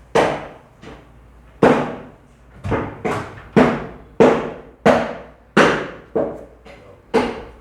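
Butcher's cleaver chopping mutton into small pieces: about ten heavy chops at an uneven pace, roughly one every half second to a second.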